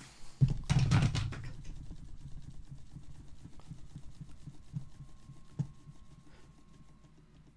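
Loud knocking and metal clatter about half a second in, fading into lighter rattles with two sharper knocks later: a rear brake caliper, seized onto its disc, being knocked free with a rubber mallet.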